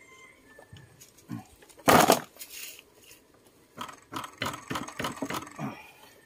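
Wrench working a bolt on a Yamaha Mio Sporty scooter engine. There is one loud metal knock about two seconds in, then a quick run of short clinks and scrapes as the bolt is snugged down.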